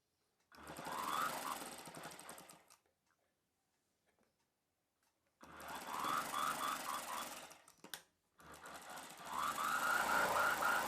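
Sewing machine stitching in three short runs, each about two seconds, stopping briefly between them, with a click between the second and third runs.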